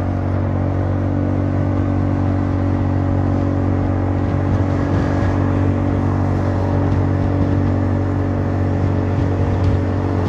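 Honda Forza 300 scooter's single-cylinder engine running at steady cruising revs, an even drone through an aftermarket exhaust freshly repacked with fiberglass wool.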